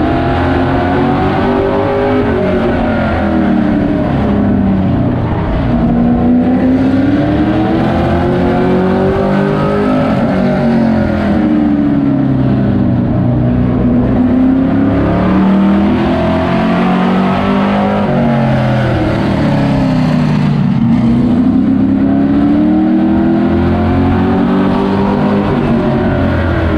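Race truck engine heard from inside the cab at racing speed, climbing in pitch on each straightaway and dropping off into each turn, four times over.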